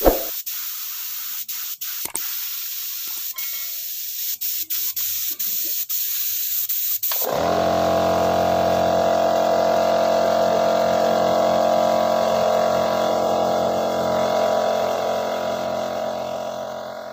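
Gravity-feed air spray gun hissing as it sprays paint, in stop-start bursts with short gaps. About seven seconds in the spraying gives way to background music of sustained, steady chords, which fades near the end.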